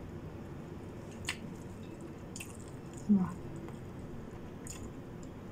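Eating sounds close to the microphone: soft wet mouth clicks and smacks a few times while chewing rice eaten by hand, with a short low vocal sound about three seconds in.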